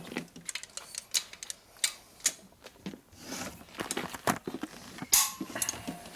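Irregular metallic clicks and clinks of hand tools on engine parts as bolts are tightened on a Harley-Davidson shovelhead engine.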